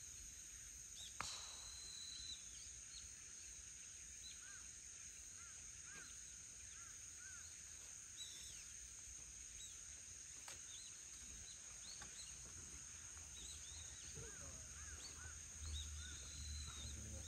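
Faint outdoor ambience: scattered short bird chirps over a steady high-pitched insect drone, with one sharp click about a second in and a low rumble near the end.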